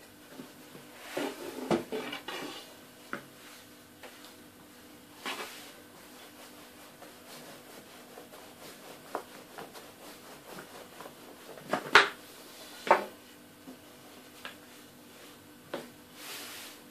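Rolling pin working a sheet of börek dough thin on a board: soft rubbing with scattered knocks and clicks, the sharpest about 12 seconds in.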